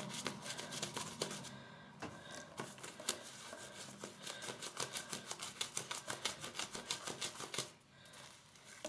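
Wet shaving lather squishing and crackling as a pure horse-tail-hair shaving brush is swirled against the palm: a fast run of soft clicks, about six a second, pausing briefly about two seconds in and again near the end.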